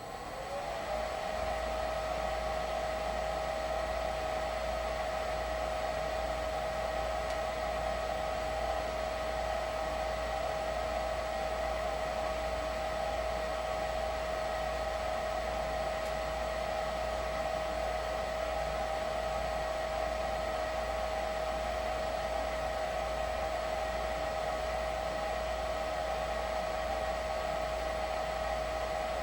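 Lennox furnace fan motor spinning up over about a second, then running steadily with a constant whine over a low hum.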